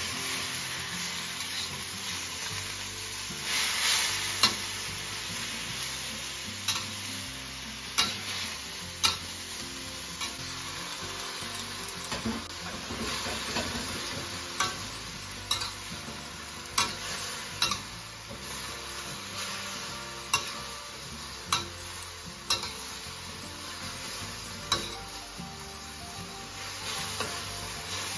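Cabbage stir-frying in a stainless steel wok: a steady sizzle, with sharp irregular clinks and scrapes of a metal spatula against the pan about every second or two.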